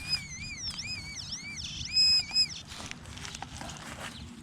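XP Deus metal detector with a high-frequency coil in pitch-tone mode, sounding a warbling tone that rises and falls with each sweep of the coil over a buried target. The tone is loudest about two seconds in.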